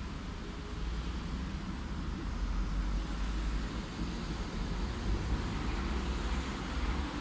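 Light city traffic: a steady hum of passing cars with a low road rumble.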